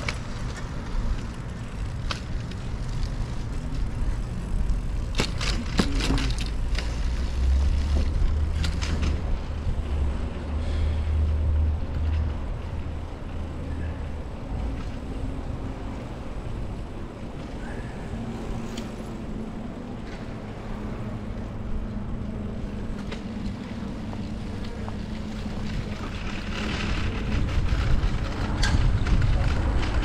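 Street ambience heard from a moving bicycle: wind on the microphone and tyre noise over a low rumble of passing traffic, which swells for several seconds about a quarter of the way in. A few short clicks and rattles come through now and then.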